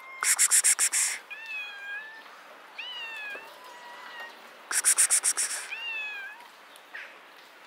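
A ginger cat meowing about three times, each call rising then falling in pitch, in answer to a person's rapid, hissed 'ks-ks-ks' calls, which come in two short bursts, at the start and about five seconds in.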